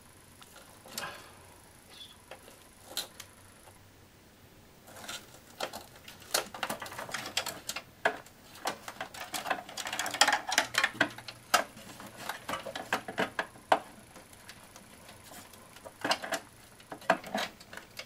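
Computer power-supply cables and plastic connectors being handled and plugged in inside a steel PC case: a run of small clicks, cable rustling and light knocks, sparse at first and busiest through the middle.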